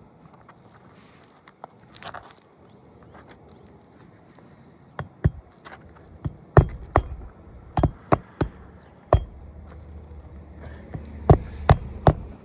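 Hand hammer driving a roofing nail through an asphalt shingle: about a dozen sharp strikes in irregular groups, beginning about five seconds in after some light rustling. The nail did not want to go in.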